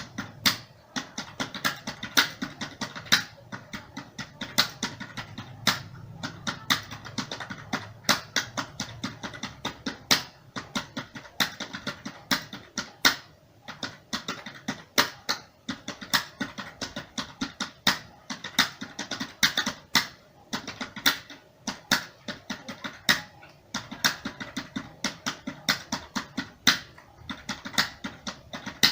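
Computer keyboard being typed on at a steady pace, a quick, uneven run of key clicks, roughly three to five keystrokes a second with brief pauses.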